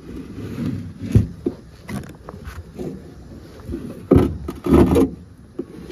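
Knocks, scrapes and clunks as a boat anchor and its rope are pulled out of storage in a small fishing boat, banging against the hull. The loudest thuds come about four to five seconds in.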